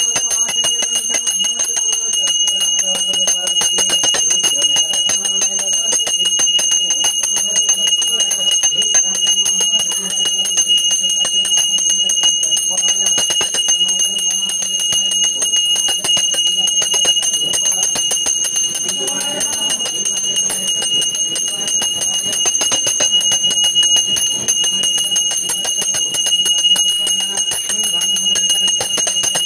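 A puja hand bell rung rapidly and without pause, its high ringing tone held steady under a dense run of strokes. Faint voices sound underneath.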